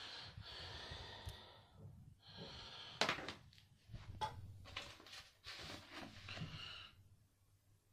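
Close handling noise from plastic disc cases and their wrapping: a few long soft hisses, each a second or so, broken by several sharp plastic clicks, the sharpest about three seconds in.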